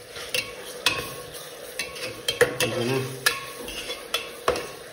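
A metal spoon stirring chopped onions frying in an aluminium pressure cooker. The spoon scrapes and knocks against the pot about eight times over a faint sizzle.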